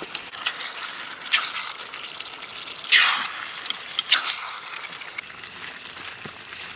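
Chicken and onions sizzling in a kadhai on a gas stove, with sudden hissing bursts of sizzle, the loudest about three seconds in and another about a second later. Crickets chirp in rapid high trills.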